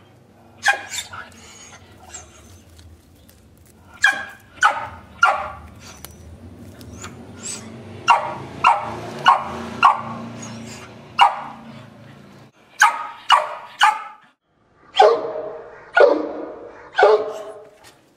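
A dog barking repeatedly: short single barks in quick groups of two to four, with pauses between the groups. A steady low hum runs underneath through the middle of it.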